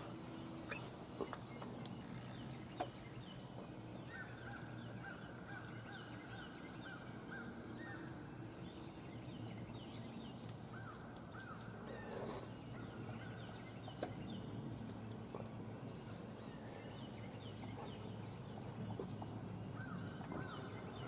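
Faint bird calls: several runs of short, quickly repeated notes, over a low steady hum, with a few sharp clicks.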